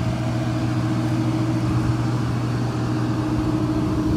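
A steady machine drone with a constant low hum and a higher tone above it, unchanging throughout.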